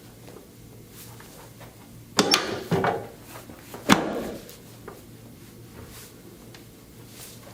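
Chiropractic adjustment on a treatment table: a short clatter of knocks about two seconds in, then one sharp crack about four seconds in that trails off.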